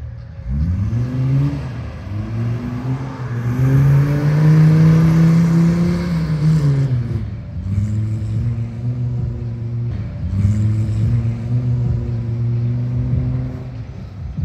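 Engine of a rallycross 4x4 revving hard on a dirt course. Its pitch climbs in the first couple of seconds, holds high for a few seconds, drops about seven seconds in, then runs at a steadier, slightly wavering pitch.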